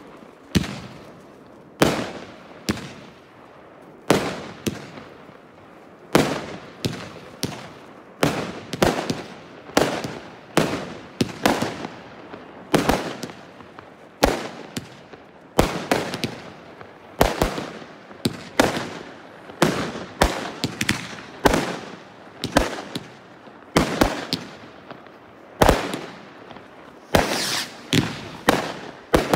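Fireworks display: aerial shells bursting in quick, irregular succession, one to three bangs a second, each trailing off in echo, with a denser run of bangs near the end.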